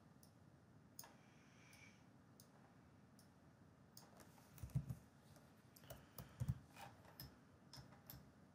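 Faint, scattered clicks of a computer mouse and keyboard, busier in the second half, with two soft low thumps a little after the middle.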